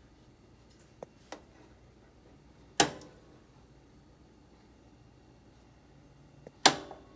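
Sharp plastic clicks from the smokeless grill's control being operated: two faint ticks about a second in, then a loud click shortly before the halfway mark and another near the end.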